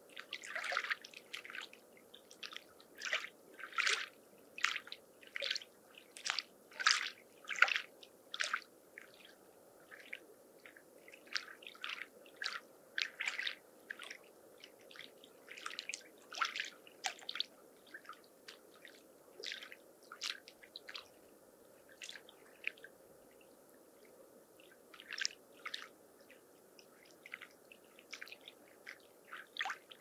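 Small lake waves lapping at the shore in short, irregular little splashes over a low steady wash, coming thick in the first half and sparser later.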